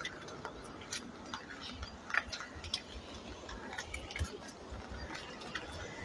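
Faint irregular taps and clicks, about one or two a second, over a steady low rumble.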